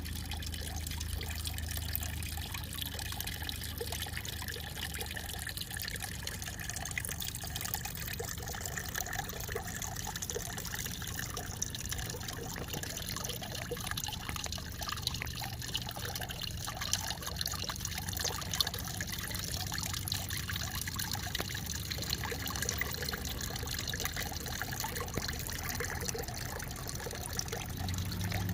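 Water fountain splashing and trickling steadily, with a faint low hum underneath.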